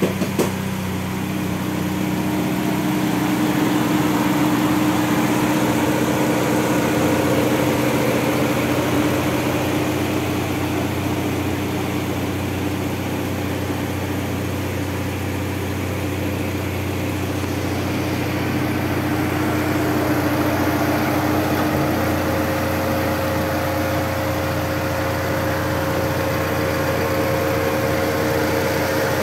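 Opel/Chevrolet Blazer's 16-valve DOHC four-cylinder engine idling steadily, heard from the open engine bay.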